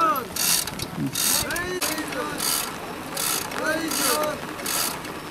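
Hand chain hoist on a pole-raising tripod being worked, its chain and ratchet rattling in a rhythmic stroke about every three-quarters of a second. Short rising-and-falling calls sound over it.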